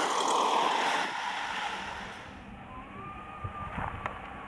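Bunch of racing bicycles passing close by with a loud rushing hiss of tyres and wind that fades about a second in, leaving quieter outdoor background with a few faint clicks near the end.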